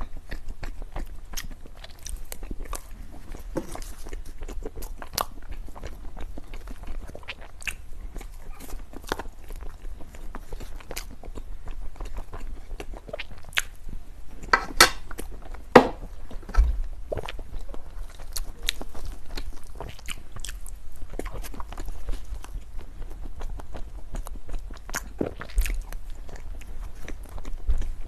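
A person chewing and biting food close to the microphone: a dense run of sharp crunchy clicks, with two louder bites about halfway through.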